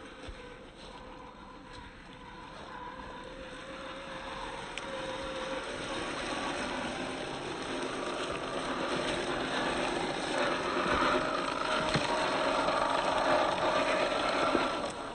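1/10-scale Boom Racing BRX01 Toyota Land Cruiser 70 RC crawler driving off-road: the electric motor and geared drivetrain whine steadily under the noise of tyres on the ground. It grows louder over most of the stretch and drops off sharply near the end.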